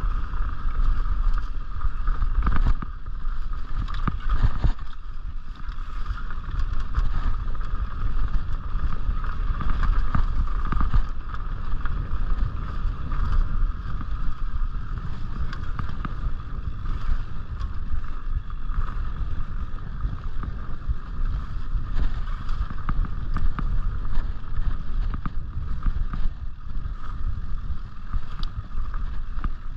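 Mountain bike ridden along a dirt singletrack, heard from the rider's camera: a steady low rumble of wind on the microphone and tyres on the trail, a constant buzzing hum, and frequent small rattles and knocks from the bike over bumps.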